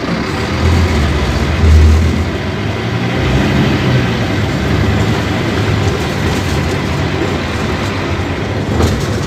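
Scania K250UB city bus's five-cylinder diesel engine running under load: a heavy low rumble, loudest in the first two seconds, then steady.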